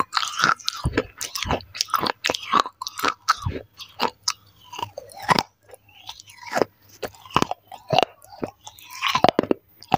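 Close-miked chewing and crunching of broken baked-clay saucer, the mouth right at a lapel microphone: a quick, irregular run of sharp crunches, a few each second.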